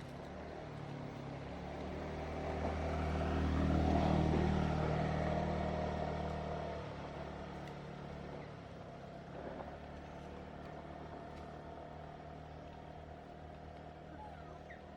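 A motor vehicle's engine passing by, growing louder to a peak about four seconds in and then fading, leaving a fainter steady engine hum.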